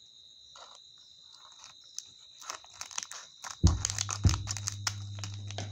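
Foil anti-static packet crinkling and crackling as it is handled and worked open, faint at first and growing denser and louder. About two-thirds of the way through a thump comes and a low steady hum sets in under the crackling.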